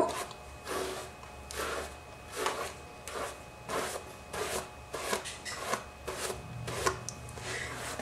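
Vent brush raking through short hair: a series of short rasping strokes, roughly one a second.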